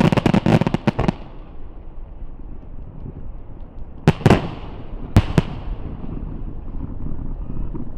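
Fireworks finale barrage: a dense volley of shell bursts and crackle ends about a second in. Two pairs of loud booms follow at about four and five seconds, each with a rolling echo that fades away.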